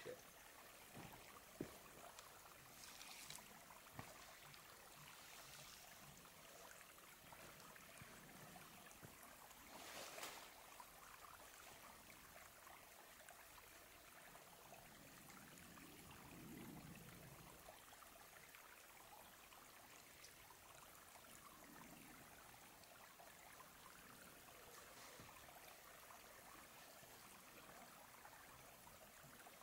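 Near silence: a faint steady outdoor hiss, with a few small clicks early on and a brief rustle about ten seconds in.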